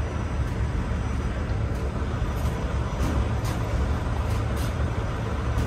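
Steady low rumble with faint, irregular light ticks over it.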